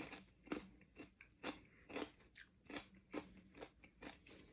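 Faint crunching of a mouthful of raw Brown Russian cucumber being chewed, in a steady rhythm of about two crunches a second.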